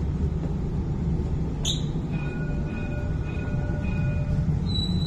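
Inside a Dubai Tram car: a steady low rumble, with a short sharp click a little under two seconds in and faint steady tones through the middle.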